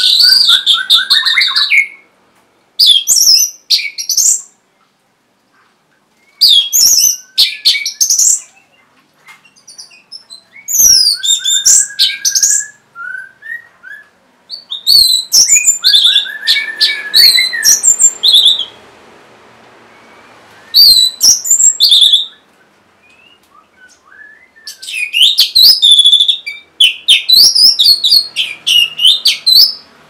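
Orange-headed thrush singing: about seven loud bursts of rapid, varied high whistled notes, each one to a few seconds long, with short pauses between them.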